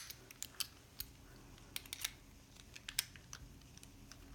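Faint, scattered small metallic clicks and taps from a Lockwood 334B padlock and its tools being handled as the lock is opened, with a dozen or so irregular clicks.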